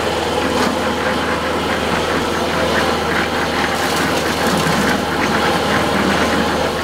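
A small engine running steadily with a low hum, with scattered short scrapes and knocks over it.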